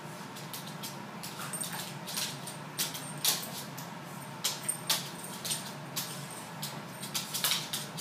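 A Boston Terrier and a Ragdoll cat play-wrestling on a hard wooden floor: irregular scuffling, with sharp clicks and knocks of paws and claws, the loudest about three and five seconds in.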